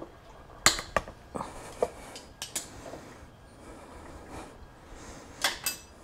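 Sharp metallic clicks and knocks from handling the motorcycle's newly fitted ape-hanger handlebars: several in quick succession about a second in, then two more close together near the end.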